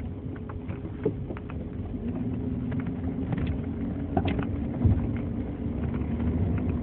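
Cabin road noise of a 2003 GMC Envoy driving: a steady engine and tyre rumble with a few light knocks, and one heavier low thump a little before five seconds in.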